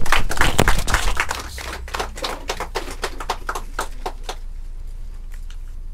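A small group clapping in applause. The clapping is loudest at first, thins out, and stops about four seconds in.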